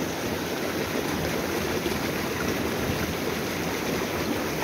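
Shallow stream rushing and splashing over rocks in a small rapid, a steady wash of water noise.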